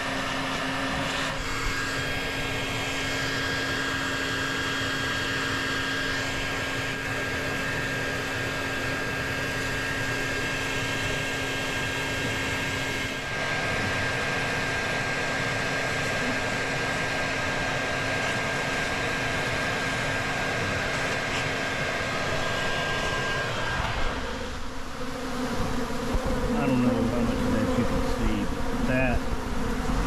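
Bee vacuum running steadily as its hose sucks up honeybees, with the bees buzzing. About 24 seconds in, the steady hum gives way to a louder, uneven buzzing with wavering pitch.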